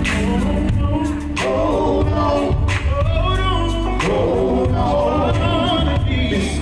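Gospel quartet singing in harmony over a live band, with steady bass and repeated drum and cymbal hits.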